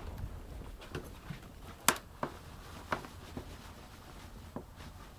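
A cat scrabbling about in a pile of clothes: fabric rustling and a handful of scattered sharp taps, the loudest about two seconds in.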